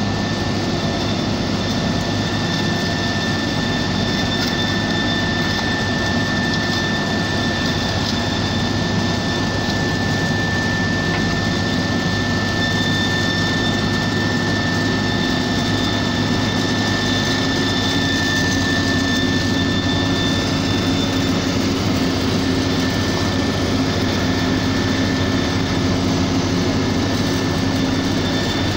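Heavy road-construction machinery running steadily, a continuous engine drone with a steady high-pitched whine over it.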